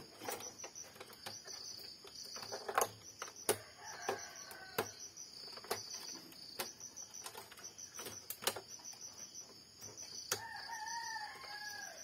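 A rooster crowing in the background: a shorter call about four seconds in and a longer one near the end. Scattered sharp clicks of plastic printer parts being handled, over a steady high-pitched trill.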